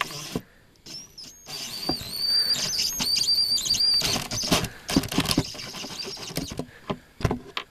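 Power drill driving a small screw: the motor runs in a high whine that steps in pitch as the trigger is eased on and off. From about four seconds in come several sharp clicks and knocks.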